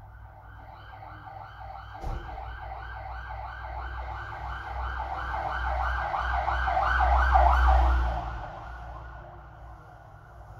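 Emergency vehicle siren going by, a warbling tone repeating about three times a second over the low rumble of the vehicle; it grows louder, peaks near the end and then fades. A sharp click about two seconds in.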